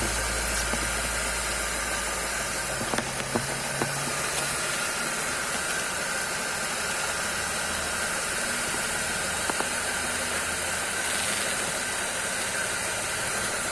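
Idler pulley bearing on a running car engine's accessory belt drive, giving a steady, even running noise with a hiss and no grinding: a bearing in good condition.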